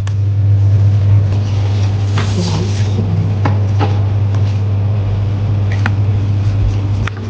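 Scattered light clicks and taps, with a brief scrape about two seconds in, from hands pressing a replacement rubber gasket strip into a MacBook Pro display lid, over a steady low hum.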